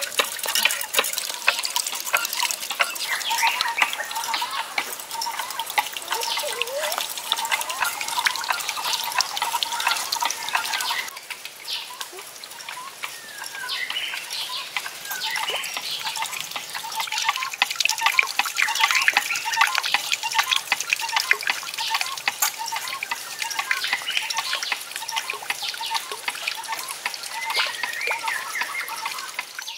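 Water spilling from a bamboo spout onto a small water wheel, trickling and splashing, with birds chirping. The sound drops for a moment about eleven seconds in.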